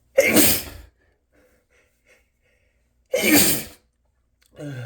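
A man sneezing twice, loudly, about three seconds apart, each a short burst; they are allergy sneezes. A brief, quieter falling groan follows near the end.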